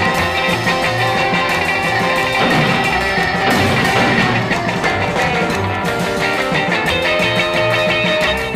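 Rockabilly music: an instrumental stretch with electric guitar over a steady bass line and drums, no singing.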